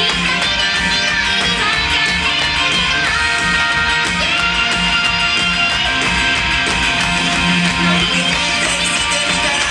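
Band music with strummed guitar over a steady drum beat, without singing.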